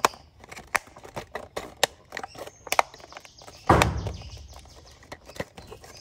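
Hard plastic toy car body being handled and pressed onto its plastic chassis so that the clips snap in: a string of small clicks and taps, with one louder knock about three and a half seconds in.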